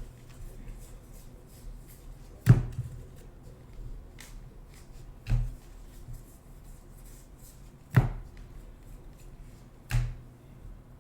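Trading cards being handled on a table: four sharp taps about two to three seconds apart, a few fainter ticks, and light rustling of cards between them.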